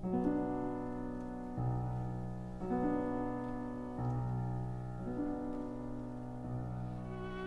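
Background music: slow piano chords, held and changing about every second.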